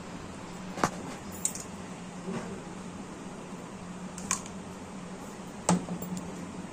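A few small clicks and taps from handling a lipstick tube and its cap while making up a small brass idol, over a steady background hiss and low hum. The loudest tap comes near the end.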